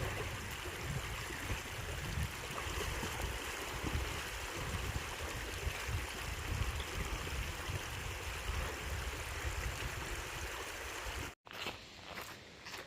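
Steady rush of stream water flowing. It cuts off abruptly about eleven seconds in, and quieter, sparser sounds follow.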